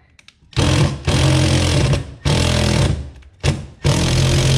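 Cordless drill running in four bursts against the wall: three runs of about one to one and a half seconds and one brief blip, with short pauses between.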